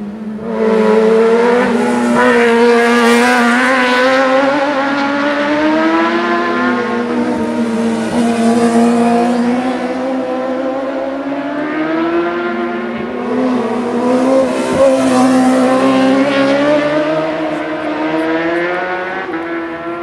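Racing motorcycle engines at high revs, heard approaching. The sound starts sharply about half a second in and carries on, its pitch wavering up and down, swelling about three seconds in and again around fifteen seconds in.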